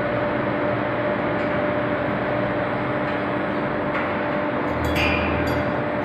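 Induction pipe-hardening line running: a steady machine noise with a constant two-note hum, and a few short clicks and a brief low rumble about five seconds in.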